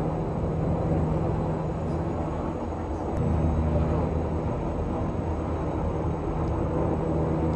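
Military helicopter running with its turbine and rotor making a loud, steady low drone that swells a little about three seconds in.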